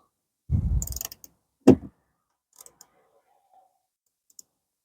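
Hand socket ratchet being worked on a bolt inside a car door: a short run of clicking and rattling, then one sharp click, then a few faint ticks.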